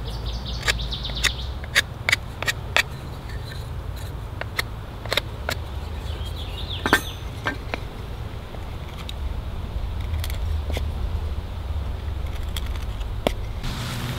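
A series of sharp clicks and snaps at irregular intervals, most of them in the first few seconds and one loud one about halfway through, over a steady low rumble, with birds chirping briefly near the start and again about halfway through.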